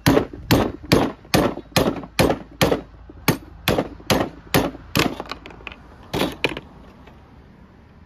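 Rubber mallet striking a tool driven into the end of a 1-inch PVC pipe held in a bench vise, splitting the pipe lengthwise like a log. A steady run of sharp blows, a little over two a second, that stops about six and a half seconds in.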